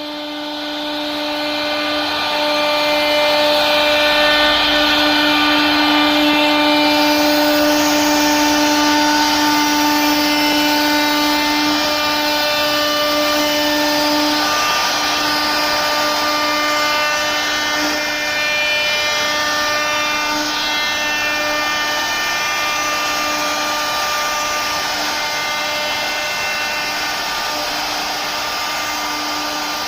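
CNC router spindle running at a steady high-pitched whine while its bit cuts wood, the cutting noise rising over the first couple of seconds and then holding steady.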